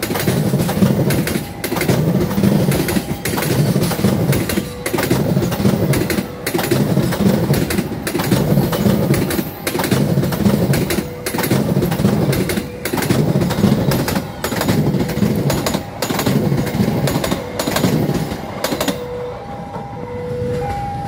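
Passenger train coaches rolling past close by, the wheels clattering over the rail joints in a steady rhythm of about one beat a second. Near the end the last coach passes, the clatter fades, and the level crossing's warning alarm is left sounding, two tones alternating.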